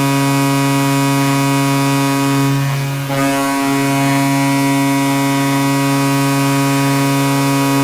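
NHL arena goal horn sounding a long, loud, deep blast with a brief dip about three seconds in.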